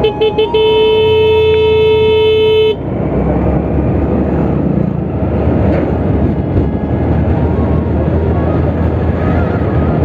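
A vehicle horn: a few short toots, then one long steady blast of about two seconds that cuts off suddenly. After it, steady wind and road noise from a motorcycle riding along.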